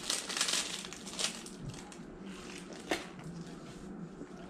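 Plastic snack wrapper of a Rice Krispies treat crinkling as it is pulled open, busiest in the first second and a half, with a single sharp click about three seconds in.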